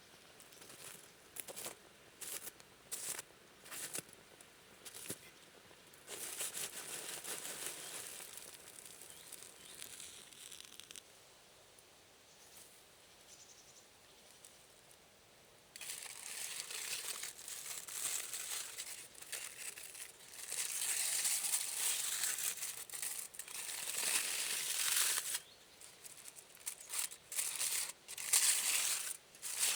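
Rustling and crinkling, with scattered sharp clicks in the first few seconds and longer bouts of rustling from about six seconds in and again from about sixteen seconds in.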